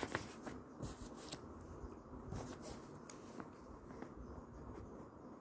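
Faint rustling and scratching of a pen and paper notebook being handled, with a few light clicks in the first second or so.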